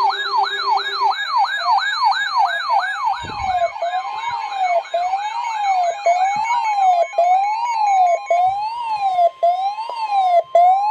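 Electronic emergency siren: a fast yelp that gradually slows into a rise-and-fall wail of about one cycle a second. A steady high tone joins about three seconds in.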